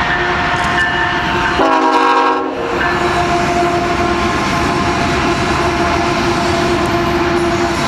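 Union Pacific ES44AC locomotive's K5HL five-chime air horn sounding as the lead units pass at speed, loudest for about a second around two seconds in, over the steady rumble and clatter of the train's wheels on the rails.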